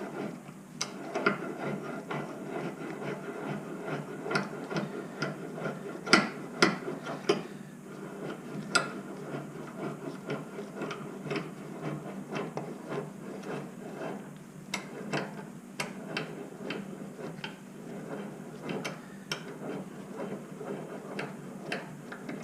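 Central Forge 6-inch carpenter's vise being worked by hand to clamp a piece of scrap wood: irregular clicks and knocks of the handle and screw as the jaw is wound in and closes on the wood, a few of them sharper.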